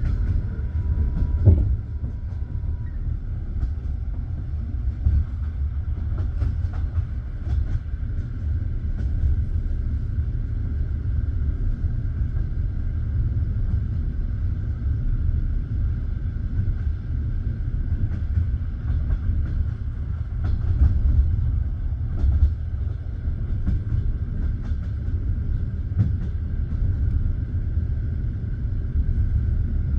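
Passenger train heard from inside the carriage: a steady low rumble of wheels on the track with scattered faint clicks, and one sharper knock about a second and a half in.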